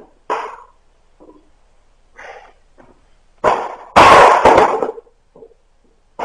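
Hand tools striking wood: a few light knocks, then a loud cluster of sharp strikes about four seconds in, lasting about a second.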